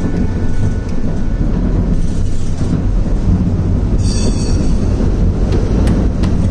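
Tram running on its rails, heard from inside the car as a steady low rumble, with a brief high squeal of the wheels about four seconds in.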